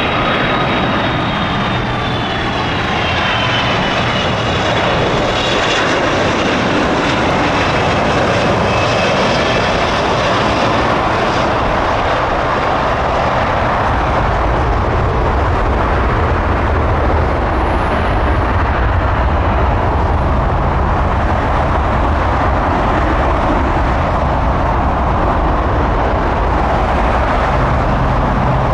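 Jet airliner engines running close by: a steady roar with a high whine that falls in pitch over the first ten seconds, then a deeper rumble that grows from about halfway through.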